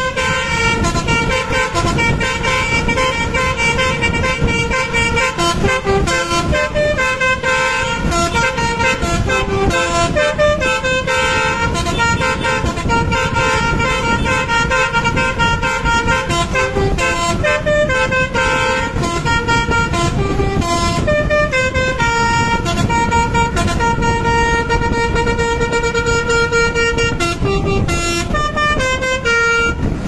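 Basuri telolet bus horn playing a tune: loud held horn notes that step up and down in pitch with short breaks between phrases, over a steady low rumble.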